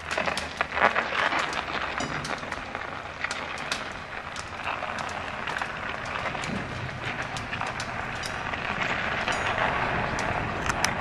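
Wheeled launching cradle rolling slowly down a slipway under a steel barge as the winch lets it down, with steady crackling and scattered clicks.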